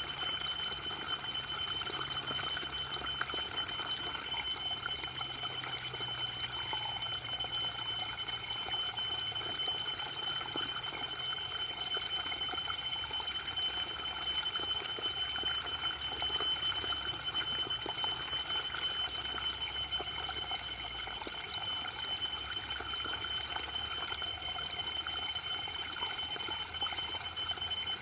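Waterfall, water falling and rushing steadily, with a thin, steady high-pitched ringing tone over it.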